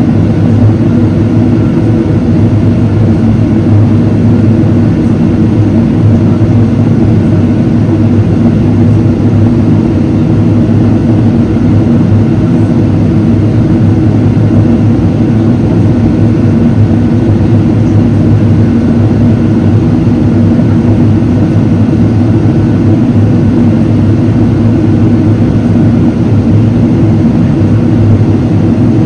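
In-cabin noise of a Boeing 777-300ER climbing out, its General Electric GE90-115B turbofans running with airflow over the fuselage: a loud, steady low drone that does not change.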